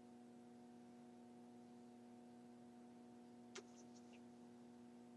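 Near silence: room tone with a steady low electrical hum, and one faint click about three and a half seconds in.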